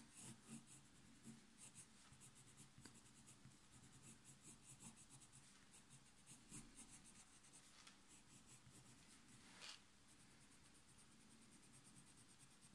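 Faint coloured-pencil strokes scratching on drawing paper in quick, short, repeated strokes as brown is layered into a drawing of hair. There is one louder scratch about three-quarters of the way through.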